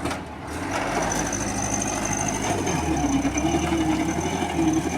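Diesel dump truck engine running and pulling away, growing louder about half a second in, its pitch rising and falling as it takes up the load, with a steady high-pitched whine over it.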